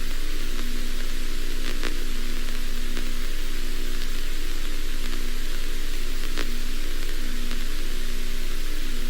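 Steady static hiss with an electrical hum underneath, broken by a couple of faint clicks.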